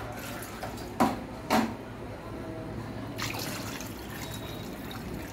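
Water poured from a bowl into a pan of thick tomato curry, splashing into the liquid as plenty of water is added to thin the dish. Two sharp knocks come about a second in, before the pour.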